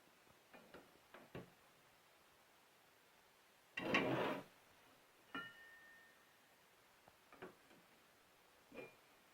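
Objects being handled on a workbench: scattered light clicks and knocks, a short rasping scrape about four seconds in, then a metal clink that rings briefly.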